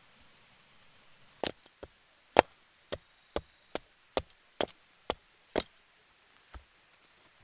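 Chopping: a blade striking wood in a series of about a dozen sharp knocks, roughly two a second, starting about a second and a half in.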